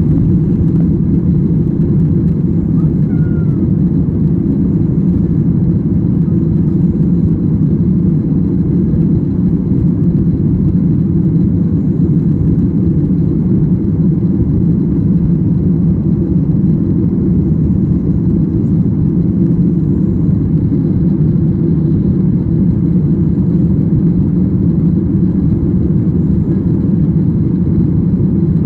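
Steady cabin noise of a Boeing 737 climbing after takeoff: the engines and rushing air heard from inside the passenger cabin as a low, even rumble.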